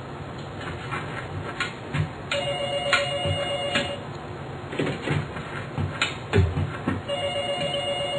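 A telephone ringing in regular rings: each ring lasts about a second and a half, comes twice, and the rings are about four and a half seconds apart. Scattered short thuds fall between the rings.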